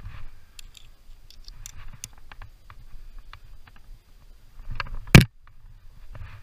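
A climber's hands, shoes and gear tapping and scraping on a sandstone face, heard as scattered small clicks. About five seconds in there is one sharp, loud knock.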